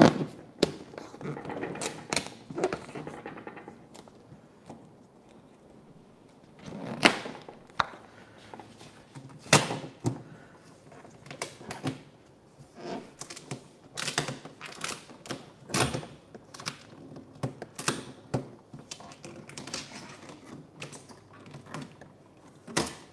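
Irregular taps, clicks and knocks from hands working vinyl wrap onto a mini fridge around its door. A few louder knocks stand out, one right at the start, two in the middle and one near the end.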